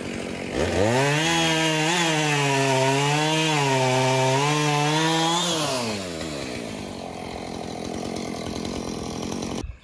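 Two-stroke chainsaw revving up to full throttle about half a second in and holding there for about five seconds, its pitch wavering as it cuts through a waterlogged downed tree trunk. It then drops back to a steady idle, and the sound cuts off suddenly near the end.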